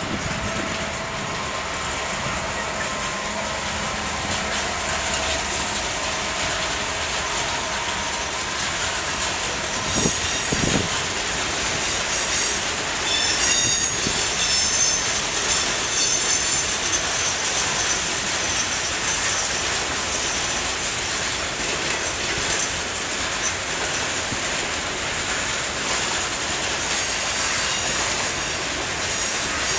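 A Class 66 diesel freight locomotive running past, followed by a long train of freight wagons rolling by with a steady rumble of wheels on rail. A few knocks come about ten seconds in, and a high squeal of wheels on the rail comes and goes in the middle.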